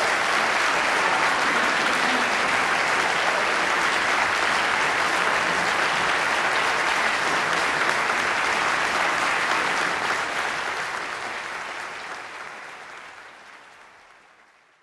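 Audience applauding steadily, then fading out over the last few seconds.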